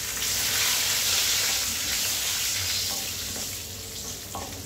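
Dry red chillies and curry leaves frying in hot oil in a kadai with a loud sizzle, stirred with a wooden spatula. The sizzle swells about a quarter second in and dies down over the last second or so.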